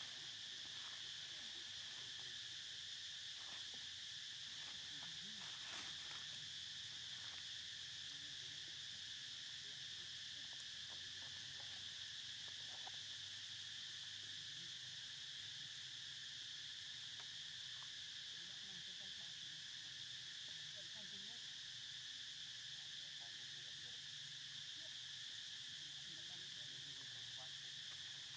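Faint, steady, high-pitched insect drone, unchanging throughout.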